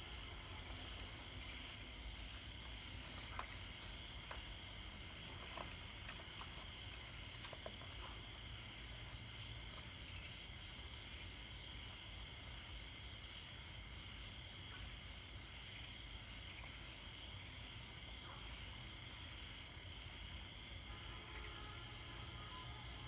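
A steady chorus of night insects chirping in a fast, even pulse, over a low background rumble.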